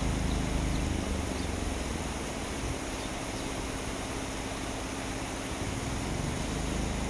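Steady low rumble of road traffic over the even rush of flowing river water.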